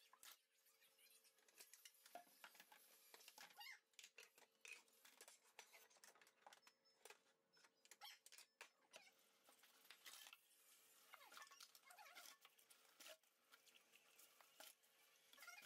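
Faint dishwashing by hand in a stainless steel sink: scattered light clinks, knocks and scrapes of plastic cups and pots being handled and set down.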